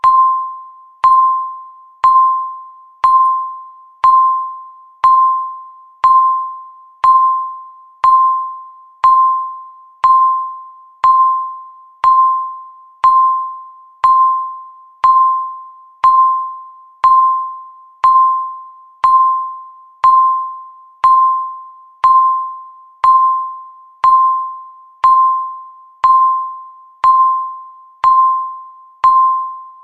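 Countdown timer beeps: a single mid-pitched electronic chime-like tone sounding once every second, each with a sharp start that fades away before the next.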